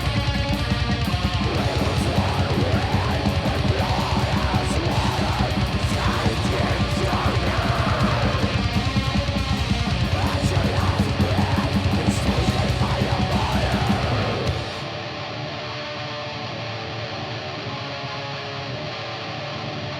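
Background rock music with guitar. About fifteen seconds in, it drops to a quieter, thinner passage.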